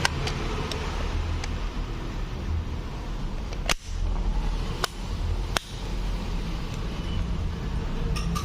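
Three sharp clicks near the middle as the plastic parts of a car power-seat switch are pressed together and snap into place, over a steady low rumble.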